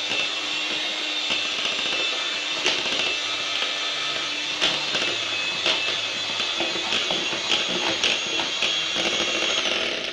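Electric hand mixer running steadily at high speed, beating flour into a thick egg-and-sugar crepe batter, with occasional clicks of the beaters against the bowl. It stops near the end.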